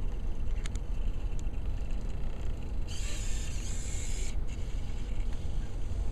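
The robot's hobby servo motors whir for about a second and a half, starting about three seconds in. A few faint mechanical clicks come earlier, over a steady low rumble.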